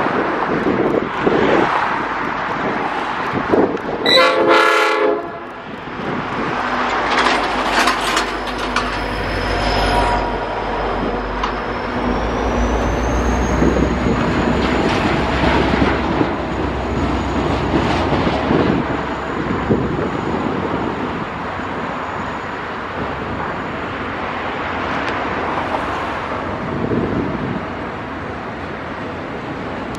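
G-class diesel locomotive passing close by, with a loud burst lasting about a second around four seconds in. Then a long container freight train rolls past with a steady low rumble and wheel clatter. A thin, high wheel squeal rises from about twelve seconds in and fades out later.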